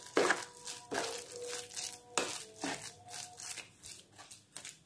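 Metal spoon stirring thick batter in a ceramic bowl, scraping and knocking against the bowl about twice a second, with each knock ringing briefly.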